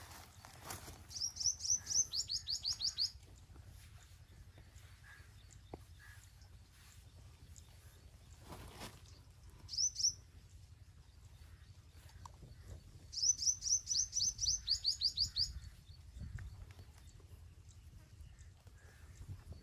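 A bird singing two quick high phrases, each a run of about a dozen rapid notes lasting about two seconds, with the later notes sliding downward. One phrase comes near the start and one about two-thirds through, with a single short note in between.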